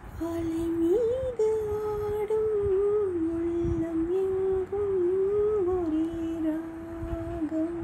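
Background music: a single melody line of long held notes that step and glide smoothly from pitch to pitch.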